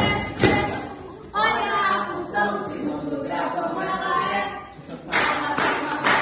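Hand claps keeping a beat, about two a second, then a stretch of singing in Portuguese over a few seconds, with the claps returning near the end.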